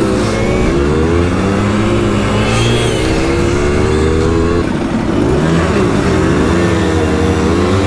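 Simson two-stroke moped engine running under way, its revs rising and falling as the throttle is worked, with a dip about five seconds in.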